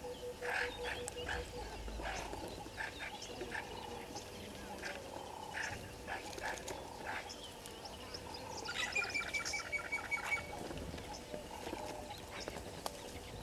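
Vervet monkeys rustling and snapping twigs in dry bushes close to the microphone, many short scattered clicks and crackles. A low repeated pulsing call fades out in the first two seconds, and a rapid trilled call of about ten pulses a second sounds briefly about nine seconds in.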